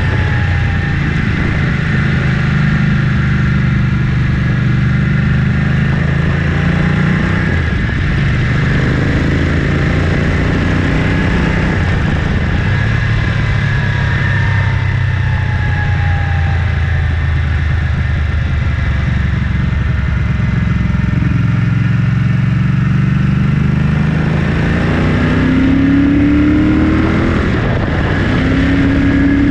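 1974 Ducati 750GT's air-cooled 90-degree V-twin running under way through stainless steel Conti replica exhausts, with wind noise. The engine note falls about seven seconds in and rises as the bike accelerates near the end.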